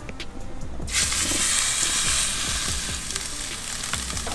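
A blackened-seasoned blackfin tuna fillet is laid into hot oil in a stainless steel skillet. It starts sizzling suddenly about a second in, then keeps up a steady, loud frying hiss as it sears.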